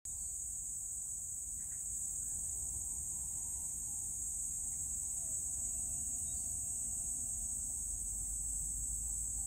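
A steady, high-pitched chorus of crickets trilling without a break, over a low rumble.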